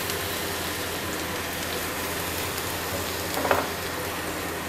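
Chopped garlic sizzling steadily in hot oil in a nonstick frying pan while it is stirred with a silicone spatula, with one brief louder sound about three and a half seconds in.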